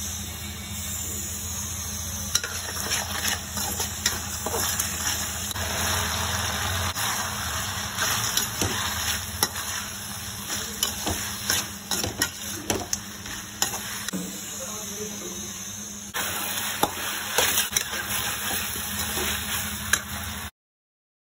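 Chilli chicken sizzling in a metal kadai as a slotted metal spatula stirs and tosses the chicken pieces and vegetables in the thickened sauce, with frequent clicks and scrapes of the spatula against the pan. The sound cuts off suddenly near the end.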